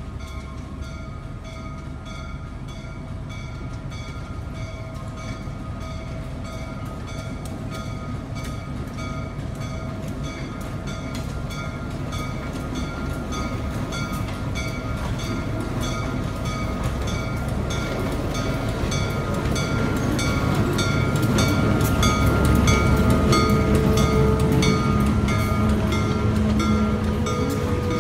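EMD SW9 switcher locomotive's V12 diesel engine approaching slowly and passing, growing steadily louder to a peak about three quarters of the way in. Its passenger coaches then roll by on the rails.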